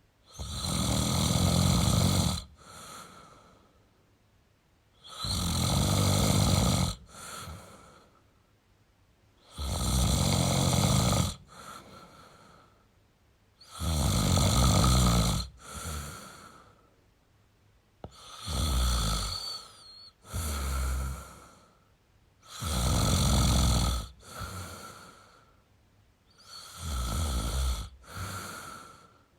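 A man snoring in a slow, even rhythm: seven long, loud snores about four seconds apart, each followed by a shorter, softer one.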